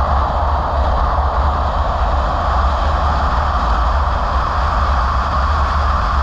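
Steady road noise of a car driving on wet asphalt, heard from inside the car: a constant low rumble with tyre hiss.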